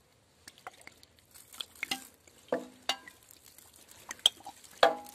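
Scattered light clicks, taps and crackling of a plastic bottle being handled against a motorcycle's engine, with a few sharper knocks about two and a half, three and five seconds in; the one near five seconds is the loudest.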